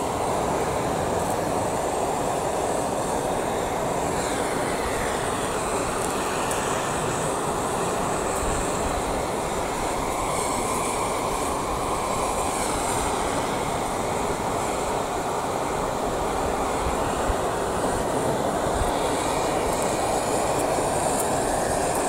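Hand-held gas torch on a gas cartridge burning with its flame played against a coffee maker, giving a steady, even rushing hiss.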